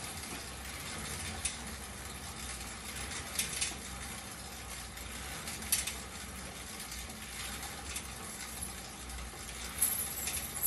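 Fan-wheel air exercise bike being pedalled: the spinning fan gives a steady rushing whoosh with a low rumble, and a few sharp clicks come from the bike's drive and pedals.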